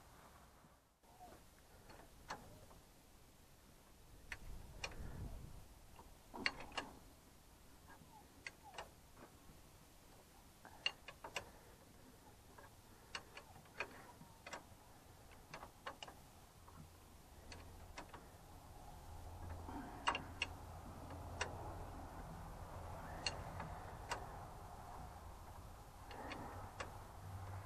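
Ratchet wrench clicking in scattered short runs of sharp ticks while bolts on a tractor's hydraulic lift control valve are tightened. A low steady hum comes in past the middle.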